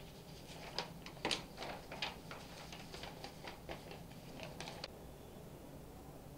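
Sheets of paper being handled and leafed through at a desk: a run of irregular short, sharp rustles and taps that stops about five seconds in.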